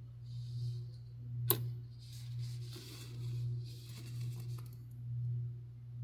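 Small handling sounds of jewelry-making materials: soft rustling and scraping, with one sharp click about a second and a half in, over a steady low hum that swells and fades about once a second.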